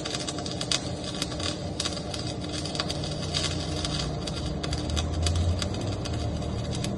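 Electric arc welding: the arc crackling with dense, irregular sharp pops over a low steady hum.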